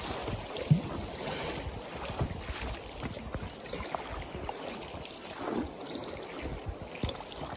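Whitewater rapids rushing and splashing around an inflatable kayak, with wind on the microphone and scattered knocks, the sharpest just under a second in.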